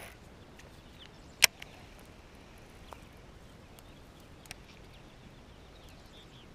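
Baitcasting rod and reel being handled: one sharp click about a second and a half in, then a couple of faint ticks, over quiet outdoor background.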